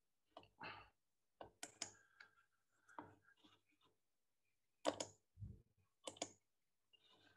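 Faint, scattered clicks of a computer mouse and keys, some in quick pairs, heard through a video-call microphone while slides are being opened and the slide show started.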